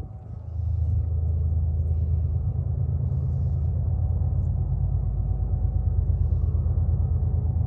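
Diesel freight locomotives running with a steady low rumble that swells about a second in and then holds.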